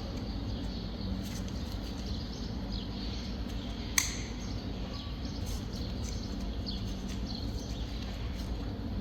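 Faint bird chirps, short and falling in pitch, over a steady low hum, with one sharp click about four seconds in.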